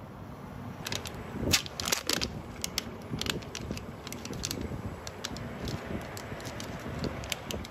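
Crinkling and crackling of a Japanese curry roux pack's plastic tray and foil-backed peel-off lid as it is handled and peeled open by hand, a run of sharp crackles, densest about a second and a half in.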